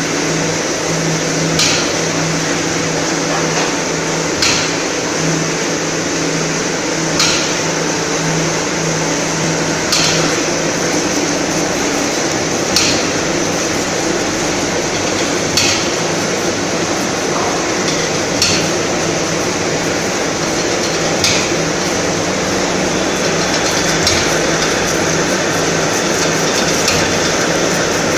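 Spindleless (chuckless) wood veneer peeling lathe running with a steady machine hum, and a sharp knock repeating about every three seconds.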